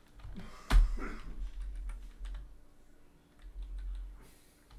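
Typing on a computer keyboard: scattered keystrokes at an uneven pace, with one sharper, louder key strike about three-quarters of a second in.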